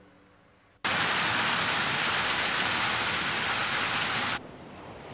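A loud, even rushing hiss like heavy rain or static starts abruptly about a second in and cuts off just as abruptly after about three and a half seconds, leaving a softer hiss that slowly swells.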